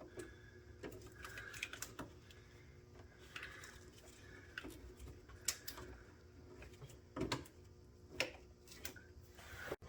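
Faint, scattered clicks and taps of hand tools and metal parts being handled, with a few sharper knocks spaced irregularly.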